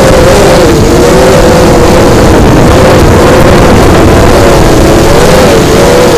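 Brushless motors and propellers of a small racing quadcopter (Cobra 2204 2300kv motors with 5045 bullnose props) whining loudly, the pitch wavering up and down with the throttle, over heavy wind rush on the onboard microphone.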